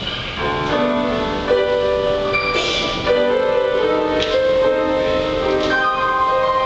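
Mixed choir singing a slow sacred anthem with grand piano accompaniment, swelling over the first second and sustaining held chords.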